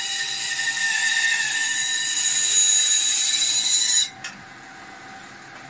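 Bandsaw cutting through a block of wood with a loud, steady high-pitched whine. About four seconds in the cut noise stops suddenly, leaving only the quieter sound of the saw running.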